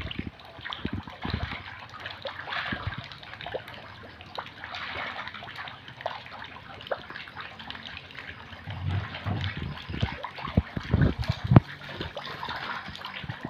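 Water splashing and churning as pond-raised catfish break the surface of a concrete pond, with many small sharp splashes and a few heavier low thuds a little past the middle.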